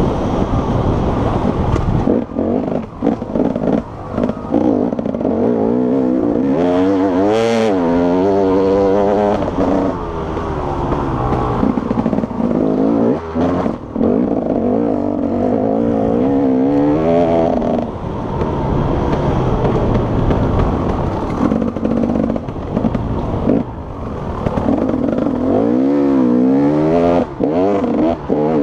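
Enduro motorcycle engine at race pace on a dirt track, revving up and down through the gears, with several brief drops where the throttle is shut off.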